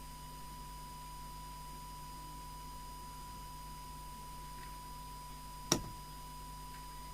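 Steady single-pitch test tone from a chromatic tuner used as an audio oscillator, fed to the CB radio for setting the transmit deviation. A single sharp click comes a little under six seconds in, over a low mains hum.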